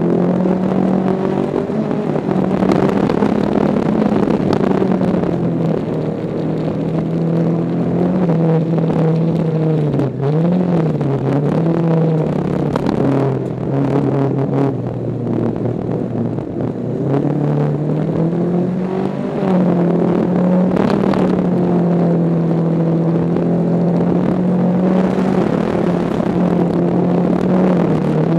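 VW Beetle's air-cooled flat-four engine running hard at high revs, heard from inside the stripped, roll-caged cabin. Its pitch dips and climbs again several times midway through before holding high again.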